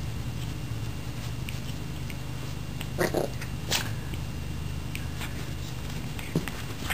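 Maltipoo dogs playing: a couple of short high yips about three seconds in, with faint light taps and a sharp tap near the end.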